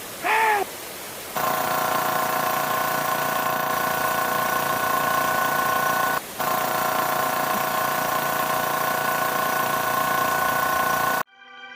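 A steady, loud mix of noise and a constant machine-like hum, broken once briefly about six seconds in and cutting off suddenly near the end. Just under a second in, a short pitched sound rises and falls in pitch.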